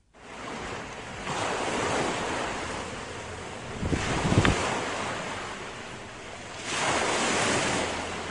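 Sea noise of small waves washing over a shallow tidal flat, swelling twice, with wind buffeting the microphone in a brief gust about four seconds in.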